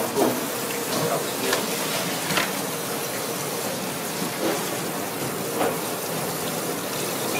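Kitchen sink faucet running in a steady stream into a stainless steel sink, the water splashing over hands rinsing under it.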